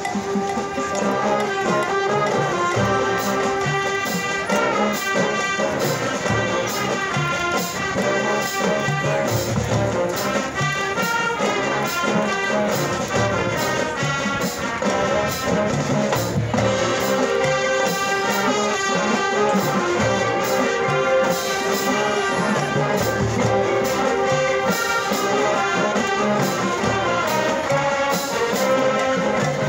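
Large marching band, massed with middle school band students, playing a fiery Latin tune: massed brass holding and moving chords over steady drum and percussion strikes on the beat.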